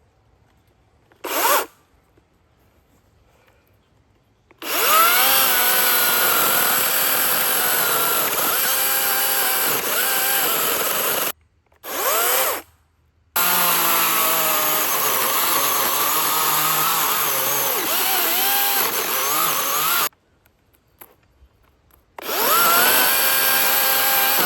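Two-stroke chainsaw cutting into a large, stubborn tree stump at ground level, its engine pitch sagging and recovering as the chain bites into the wood. It runs in long stretches of several seconds that break off abruptly, after a short burst about a second and a half in.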